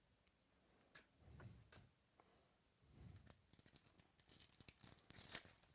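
Faint handling of trading cards and packs: soft scrapes, slides and clicks, growing busier partway through, with a louder rustle near the end.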